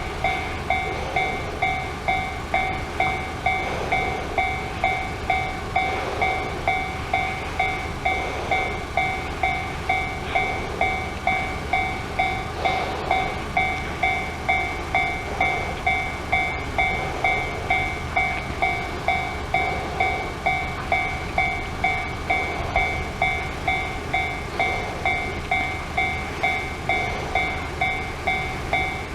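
Japanese level-crossing alarm at a JR Ryomo Line crossing, ringing its repeating 'kan-kan' steadily at nearly two strikes a second over a low rumble.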